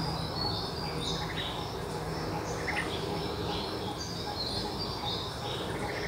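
Small birds chirping: short, high chirps in quick clusters that recur every second or so, over a steady background hiss.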